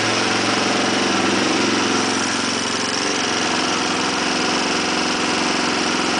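Turbocharged, fuel-injected KTM 525XC single-cylinder four-stroke engine running steadily on its newly reground camshaft.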